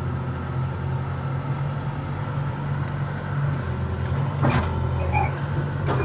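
Backhoe diesel engine running steadily, heard from inside the cab. There is a short clank about four and a half seconds in.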